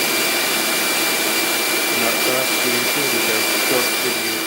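CNC router machinery running steadily: a loud, even rush of air with a constant thin high whine.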